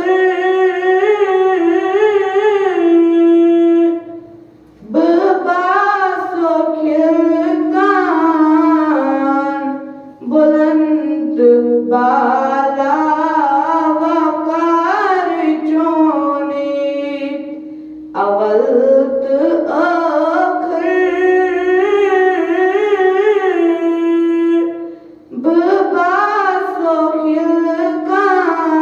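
A girl's solo voice singing a Kashmiri naat, in long ornamented phrases with short breaths between them.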